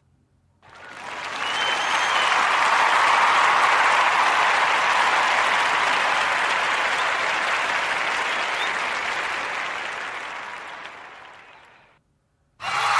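A crowd applauding, swelling in over a couple of seconds and then slowly fading out.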